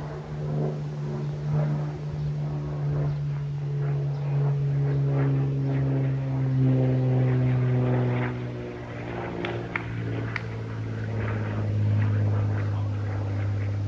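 Small propeller airplane flying overhead: a steady engine-and-propeller drone whose pitch drops about eight seconds in as it passes and moves away.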